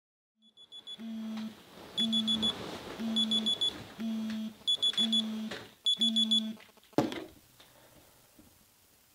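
Smartphone alarm going off: six repeats, about once a second, each a group of four quick high beeps over a low buzz. A single knock follows, and the alarm stops.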